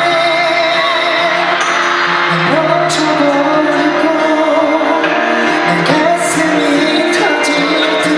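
A man singing live into a handheld microphone over backing music, amplified through the hall's sound system.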